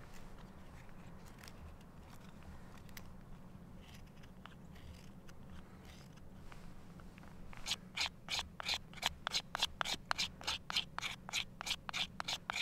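A knife blade carving a dry wooden stick to make tinder: a few faint cuts at first, then from about eight seconds in a quick run of scraping strokes, about four a second, as it scrapes off fine shavings.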